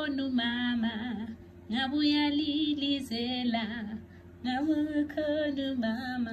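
A woman singing, the same short phrase of held notes sung over again, with brief pauses between phrases.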